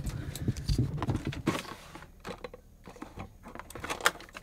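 Irregular light clicks and knocks of things being handled and shifted in a clear plastic drawer, busier at first and then sparser. A sharper knock comes near the end as the Dobble card-game tin is taken hold of.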